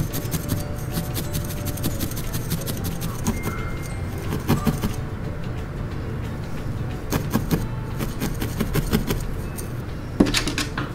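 Felting needle jabbing repeatedly through wool into a bristle brush mat: a rapid run of scratchy clicks that thins out about halfway and picks up again, with one sharper click near the end.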